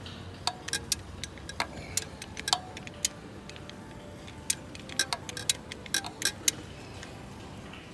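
Sharp metallic clicks and taps of a hand tool working on the engine's oil pressure switch while it is being loosened. They come irregularly in small clusters, some with a brief ring.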